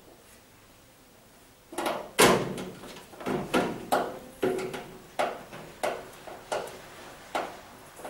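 Hand screwdriver driving a screw through a tumble dryer's plastic front duct into its sheet-metal cabinet: a louder knock and scrape about two seconds in, then a regular string of short creaking turns, roughly one every two-thirds of a second.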